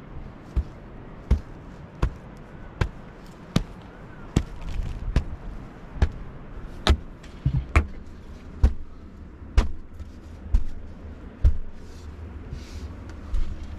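Steady pounding of a hand tool packing mud and stones into a dry-stone wall: a sharp knock with a dull thud, repeated evenly a little faster than once a second.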